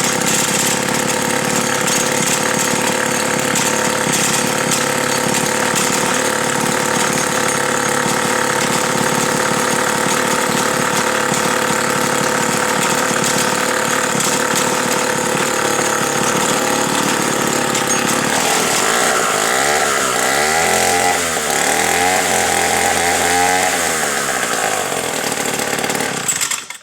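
1965 Sears Craftsman / David Bradley chainsaw's Power Products AH-47 two-stroke engine running steadily, then revved up and down several times from about two thirds of the way in, before it shuts off near the end.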